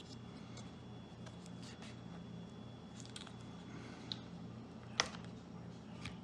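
Faint small clicks and taps of hands working a laptop's plastic internals around the battery and its connector, the sharpest click about five seconds in, over a steady low hum.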